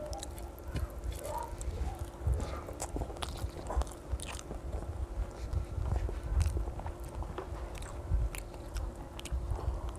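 A child chewing mouthfuls of rice and fish curry, with scattered short clicks and soft squelches as his fingers mix the rice on a china plate. A faint steady hum runs underneath.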